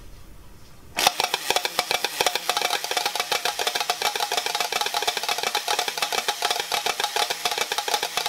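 Two battery-powered Duracell drumming bunny toys drumming together, both working again after repair: a fast, uneven clatter of sticks tapping on their small toy drums starts about a second in and keeps going.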